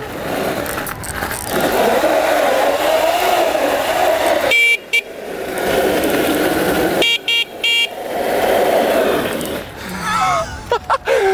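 Surron Light Bee electric dirt bike's tyres squealing on tarmac as it drifts through turns, the pitch wavering. Short high beeps cut in once about four and a half seconds in, then three times about seven seconds in. A shout comes near the end.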